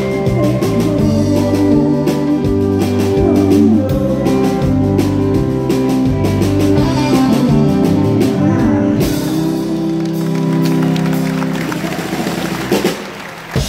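Live country band (drums, bass, guitars and pedal steel) with a woman singing lead, winding up the song: from about nine seconds in the band holds a final chord over cymbal wash, ending with closing hits near the end as applause begins.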